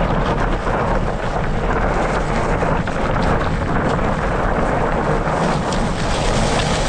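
Canyon Lux mountain bike ridden over a loose, stony gravel track: a steady crunching and rattling of tyres on stones, with many small knocks from the bike, mixed with wind noise on the microphone.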